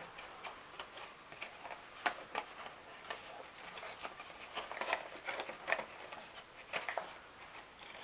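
Small white cardboard box being worked open by hand: irregular rustles, scrapes and light taps of card flaps.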